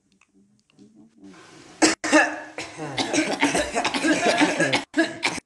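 Loud, fast human coughing with throat clearing, with a brief gap about two seconds in, cut off abruptly near the end.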